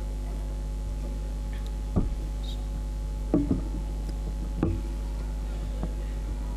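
A steady low hum with a few short, sharp knocks scattered through it: the loudest about two seconds in, a pair around three and a half seconds, and another near four and a half.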